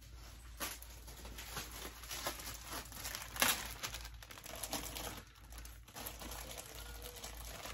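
Thin clear plastic garment bags crinkling and rustling as they are handled and pulled open, in irregular crackles, the loudest about three and a half seconds in.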